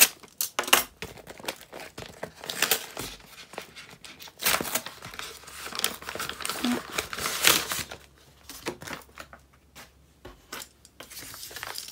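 Packaging being crinkled and rustled by hand as it is opened, with scattered sharp clicks. Longer rustles come about two and a half seconds in and again from about four and a half to eight seconds. After that only a few light clicks follow.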